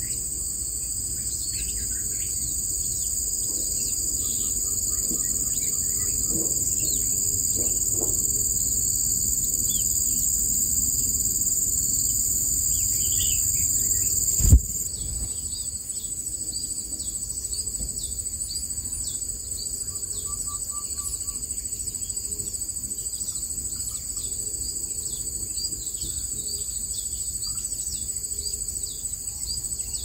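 A steady, shrill chorus of insects, with many short, faint, high chirps over it: plausibly the begging calls of long-tailed shrike nestlings being fed. A single sharp knock comes about halfway through.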